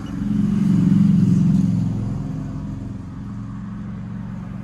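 A motor vehicle's low engine rumble swells to its loudest about a second in, then fades over the next two seconds, leaving a steady low engine hum.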